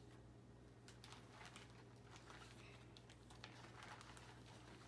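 Near silence: room tone with a steady low hum and faint scattered clicks and rustles of cardboard kit pieces being handled.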